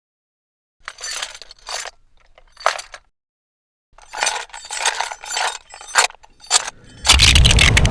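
Short bursts of clinking and clattering, irregularly spaced, then a loud rumbling blast starting about seven seconds in and running on.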